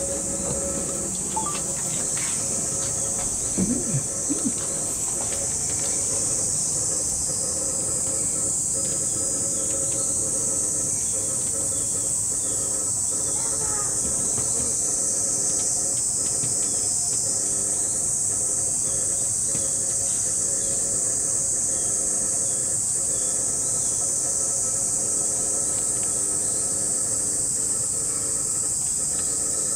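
Steady high-pitched chorus of summer cicadas droning without a break, over a steady low hum, with a few brief knocks about four seconds in.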